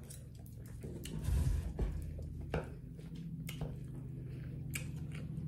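Lawnmower engine running steadily as a low hum, under close-up eating sounds: chewing and a few sharp clicks of a fork, with a heavier thump about a second and a half in.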